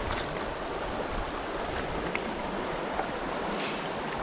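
River water flowing with a steady rushing sound, with a few faint ticks.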